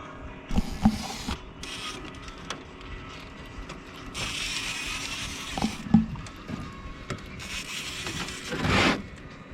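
Knocks and thumps of handling in a fishing boat, with two bursts of rushing hiss, the second swelling up near the end.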